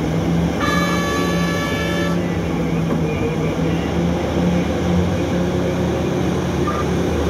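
Diesel engines of a Hitachi EX3600 mining excavator and a haul truck running with a steady, even drone during loading. A horn sounds once, for about a second and a half, just after the start.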